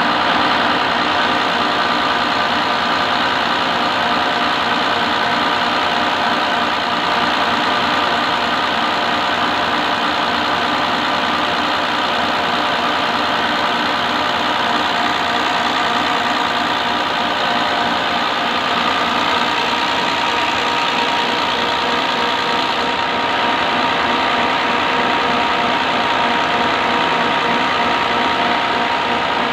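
Six-cylinder Bosch inline diesel injection pump running steadily on a calibration test bench, driven by the bench motor, with an even level throughout.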